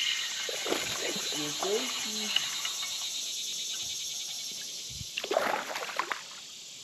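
Steady high chorus of insects, with a low wordless mutter early on and a short bout of splashing and knocks about five seconds in.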